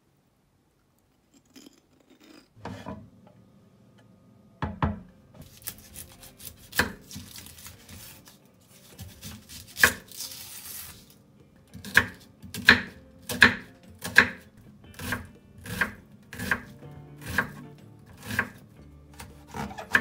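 A kitchen knife cutting an onion on a wooden cutting board. After a couple of near-silent seconds come a few knocks of the blade and a dry rustle of papery onion skin being trimmed, then a steady run of chopping strikes about one every two-thirds of a second as the onion is diced.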